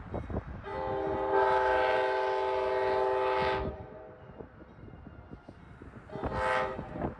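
Amtrak locomotive's multi-chime air horn sounding two blasts: one long blast of about three seconds, then a short one. Wind buffets the microphone in between.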